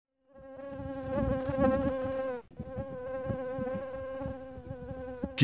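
Mosquito whining in flight: a steady high-pitched buzz with a slight waver that breaks off briefly about halfway through, over faint low crackling.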